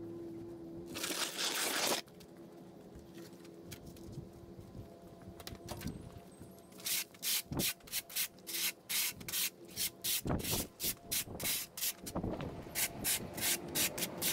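Rapid rhythmic scraping strokes on a hard surface, about three a second from midway on, after one longer scrape about a second in.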